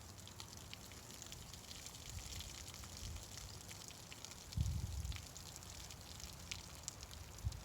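Faint outdoor background with scattered light ticks and two soft low thumps, one about halfway through and one near the end.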